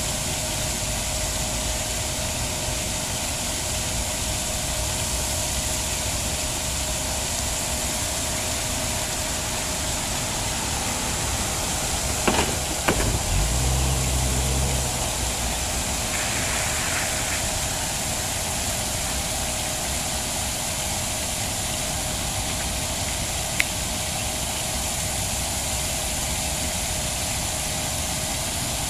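Steady mechanical drone with a constant hum and hiss. There are two sharp clicks about halfway through, followed by a low rumble lasting a couple of seconds.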